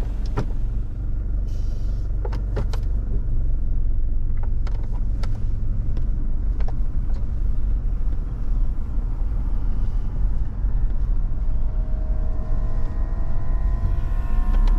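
A four-wheel drive rolling slowly along a dirt track: a steady low rumble of engine and tyres, with a few light clicks scattered through the first half and a faint steady hum joining near the end.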